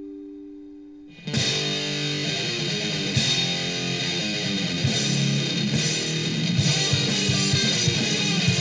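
Instrumental rock music: a held guitar note fades out, then about a second in a loud electric guitar and bass part comes in and keeps going.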